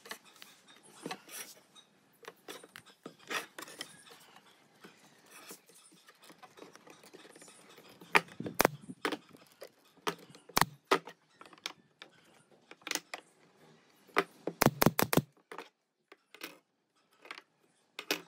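Pine strips being handled and set down on a wooden workbench: scattered light knocks and clicks of wood on wood, with a quick run of taps about fifteen seconds in.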